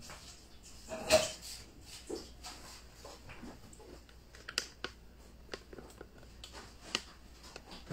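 Scattered light knocks and clicks of things being handled and set down while clearing up a kitchen worktable, with one louder knock about a second in.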